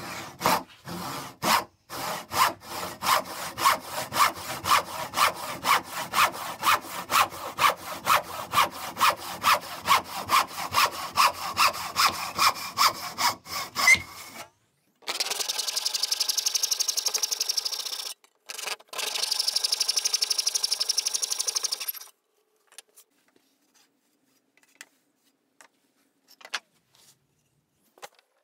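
Hand-sawing softwood with a restored back saw (tenon saw) with freshly re-cut teeth: even push strokes about three a second for some fourteen seconds. After a short pause comes a faster, higher-pitched stretch of sawing lasting about seven seconds. It ends in a few light knocks as the cut wood is handled.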